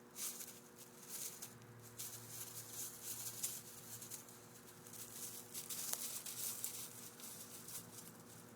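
Irregular flurries of quick scratching and scrabbling as a Jack Russell puppy tussles with mice, over a faint steady hum.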